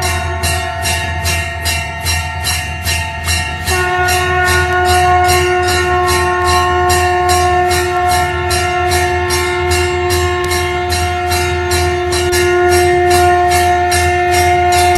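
Hindu temple bell rung rapidly and steadily, about three strokes a second. About four seconds in, a conch shell (shankh) joins with one long steady blown note held to the end, over a low steady hum.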